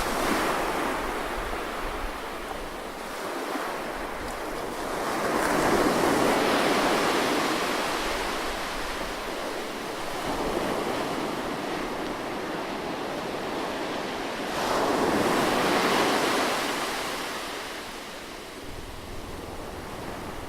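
Ocean waves breaking close by on a beach, the surf washing in and out in slow swells. The two biggest waves break about five seconds in and again about fifteen seconds in.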